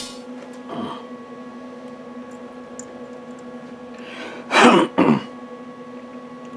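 A person clearing their throat: one rough burst followed quickly by a shorter second one, a little past halfway, over a faint steady hum.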